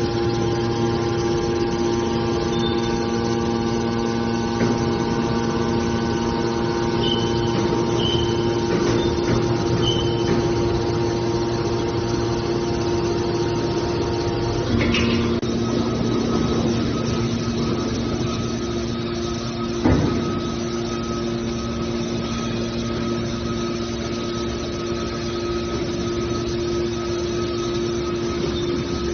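Hydraulic scrap metal baler's power unit running with a steady hum. About halfway through, its tone shifts, and a single clank follows a few seconds later.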